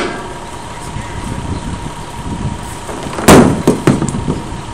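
Impacts on a steel frame: one loud bang a little past three seconds in, then three smaller knocks over the next second.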